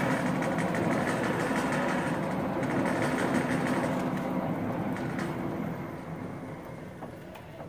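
PP1621AL fully automatic pallet stretch wrapper running, its turntable drive making a steady mechanical hum that fades away over the last few seconds as the machine winds down.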